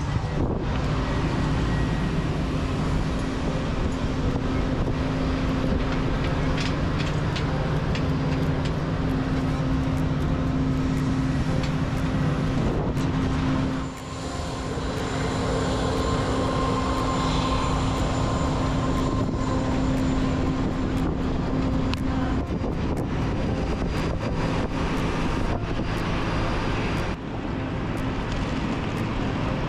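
Steady drone of jet airliners on an airport apron, a continuous rushing noise with a low hum and a fainter whine held beneath it. The sound dips briefly twice, about halfway through and near the end.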